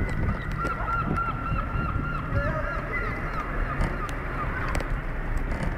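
Steady rumble of a tyre rolling over paving slabs, with a quick run of short, repeated, high chirping calls through the first half.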